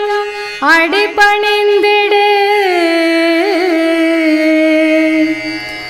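A solo voice singing a line of Tamil devotional verse in Carnatic style, ending on one long held note that wavers briefly in the middle.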